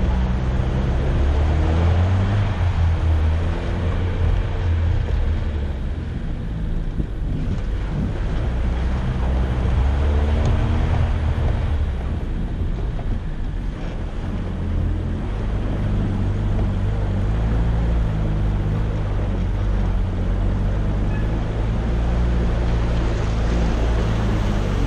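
Daihatsu Feroza's 1.6-litre four-cylinder engine running under load as the 4x4 drives through mud. The engine pitch rises and falls a few times, around 6 and 10 seconds in.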